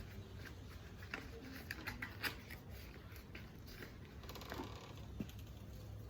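Faint rummaging through a box of odds and ends: scattered small clicks and taps of objects being handled, with a short rustle about four and a half seconds in.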